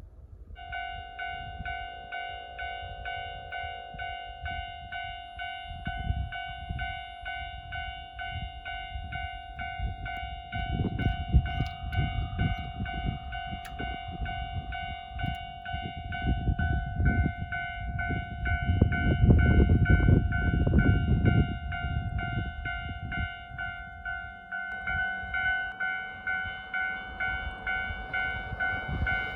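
Japanese railway level-crossing alarm starting up about half a second in, then ringing a steady, evenly repeating electronic ding to warn of an approaching train, over a low uneven rumble. Near the end a rising rush builds as the train draws near.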